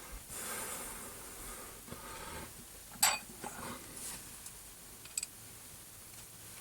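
Steel tooling being handled: a bolt and spring washer being fitted into a face mill on its arbor, with light scraping, one sharp metal clink about three seconds in and a couple of fainter clicks later.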